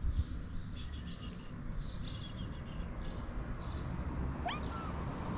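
A cat gives one short meow that rises sharply in pitch about four seconds in, over a steady low rumble.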